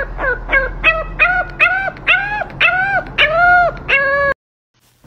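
French bulldog puppy howling in a quick string of cries: short falling yips at first, then longer rising-and-falling howls that lengthen. It cuts off suddenly about four seconds in.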